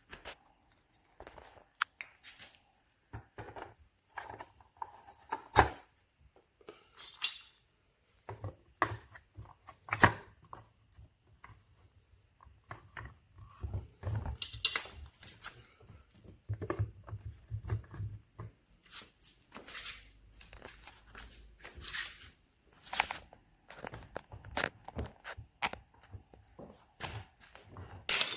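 Scattered clicks, knocks and rustles of something being handled, at irregular intervals, with a few sharper knocks about 5 and 10 seconds in; no motor running.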